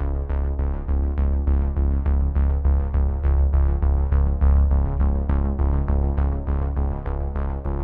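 Background electronic music: synthesizer notes struck in a steady pulse of about four a second over a held low bass.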